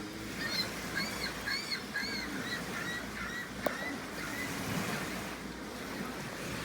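Gulls calling: a quick run of about eight short calls over about three seconds, over a steady wash of surf and wind. A single sharp click partway through.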